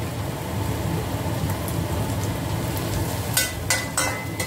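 Chopped garlic and shallots sizzling in hot oil in a stainless steel wok. About three and a half seconds in, the metal ladle scrapes and knocks against the wok three times, and the wok rings briefly.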